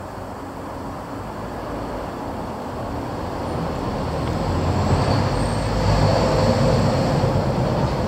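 Low rumble of a passing vehicle, growing louder about halfway through and easing off near the end.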